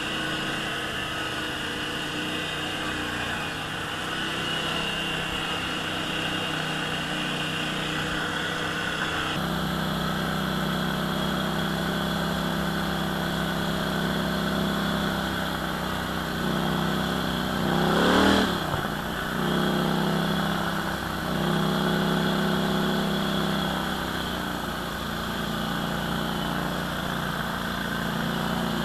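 ATV engine running on a trail ride. Its note shifts abruptly about a third of the way in, and about two-thirds through it revs up sharply and drops back.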